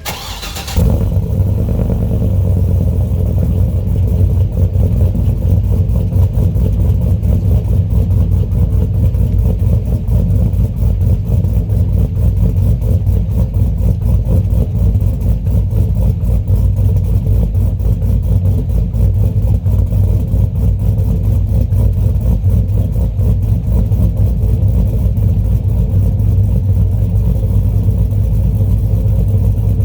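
LS V8 engine and aftermarket exhaust of a Chevy Trailblazer running steadily and loudly. It cuts in abruptly just under a second in.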